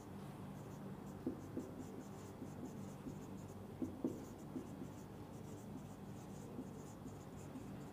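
Faint strokes and light taps of a marker pen writing on a whiteboard, in short irregular runs.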